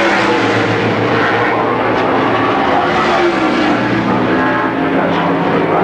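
NASCAR stock cars' V8 engines running on the track, loud and continuous, several engine notes bending in pitch as cars pass by.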